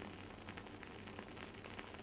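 Wooden candle wick crackling as it burns: faint, irregular small pops and ticks, several a second, over a steady soft hiss.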